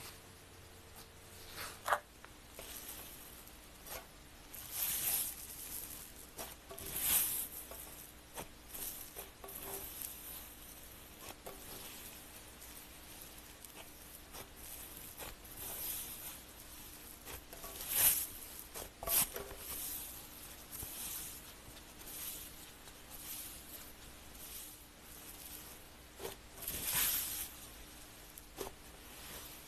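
Slime being handled by hand, making irregular sticky crackles and squelches in short bursts, with a few louder ones scattered through.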